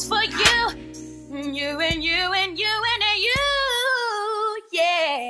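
Background music: a voice sings a drawn-out melody over low sustained accompaniment, which drops out about four seconds in, leaving the voice alone.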